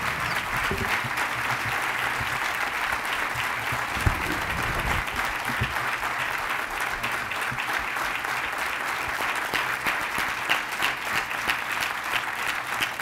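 Large audience giving a standing ovation: sustained applause from many hands, thinning toward the end into more separate claps.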